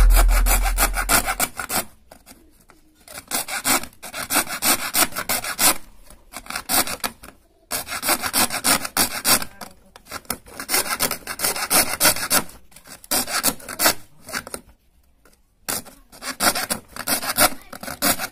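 A bare hacksaw blade, held in the hand, is cutting an opening in a switchboard sheet. It makes quick rasping back-and-forth strokes in runs, with short pauses between them. Music fades out in the first second or so.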